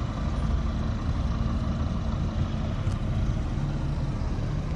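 Truck engine idling steadily, a low even hum with no change in speed.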